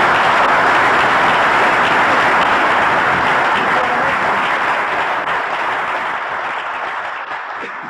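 Audience applauding, a loud, steady spatter of clapping that fades away over the last few seconds.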